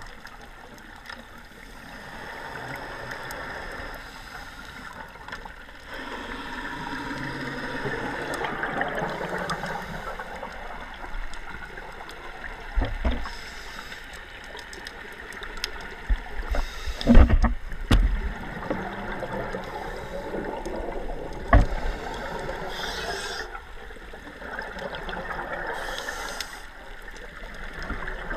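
Scuba regulator bubbles gurgling and hissing underwater, swelling and fading in waves with each breath. Several dull knocks come in the middle stretch, the loudest about two thirds of the way through.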